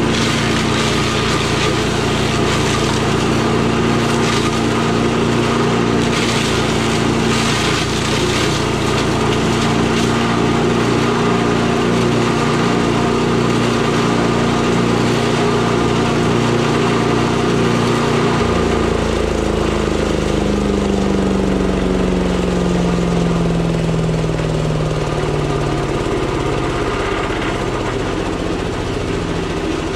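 8 hp Briggs and Stratton engine of a Tomahawk chipper shredder running at full speed, with crackling as a branch goes through the shredder a few seconds in. About two-thirds through, the engine slows, its pitch falling steadily as it is throttled back toward idle.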